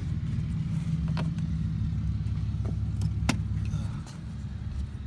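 A steady low hum with a few sharp clicks and taps, from tools and hands working at the glove-box screws under a car's dashboard.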